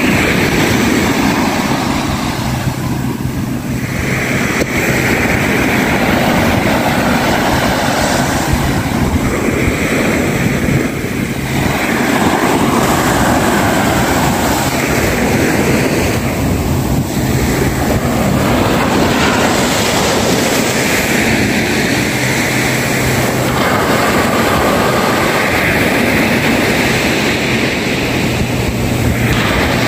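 Small sea waves breaking and washing up a sandy beach, a continuous rushing surf that swells and eases every few seconds, with wind buffeting the microphone. A faint steady low hum comes and goes underneath.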